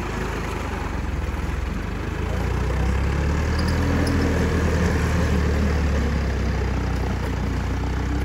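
John Deere 5050D tractor's three-cylinder diesel engine running steadily under load as it drives a rotary tiller through wet paddy soil, a deep low rumble that swells slightly a few seconds in.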